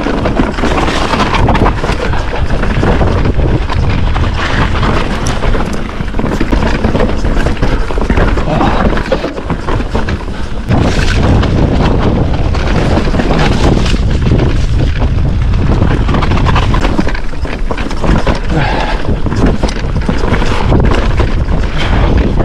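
Wind buffeting the microphone over the rattle and knocking of an electric mountain bike riding fast down a rough trail, its tyres rolling over rock, roots and dirt.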